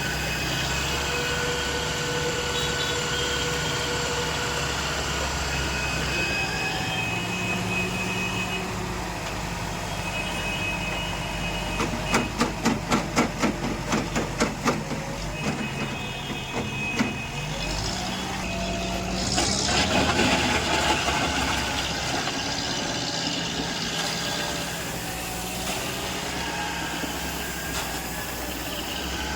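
Heavy vehicle engine running steadily, with a quick run of about ten sharp knocks a little under halfway through and a louder rushing surge about two-thirds of the way in.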